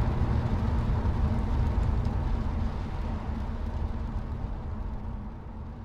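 Car driving noise, a low steady road and engine rumble, fading steadily away as the track ends.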